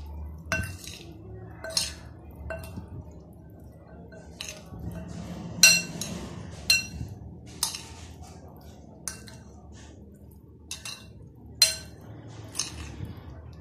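Metal spoon clinking against a glass bowl while stirring chopped boiled potatoes and vegetables: about a dozen irregular, ringing clinks, the loudest about six seconds in.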